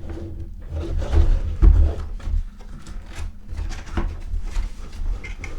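Cardboard box being handled and opened: irregular scraping and rustling with small knocks, the loudest thump a little under two seconds in.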